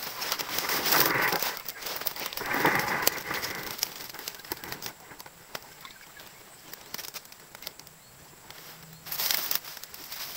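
Fern fronds and dry leaves rustling and crackling as someone pushes through thick undergrowth, with louder bursts about a second in, around three seconds and near the end, and scattered small snaps between.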